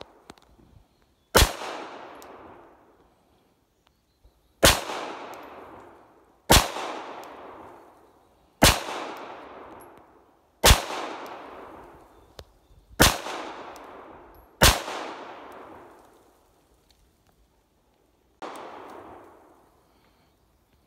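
Seven handgun shots fired one at a time, about two seconds apart, each followed by a decaying echo. A fainter, duller bang comes about four seconds after the last of them.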